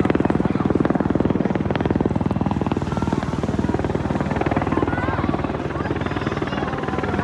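US Army AH-64 Apache attack helicopter in flight, its four-blade main rotor beating in a fast, steady rhythm.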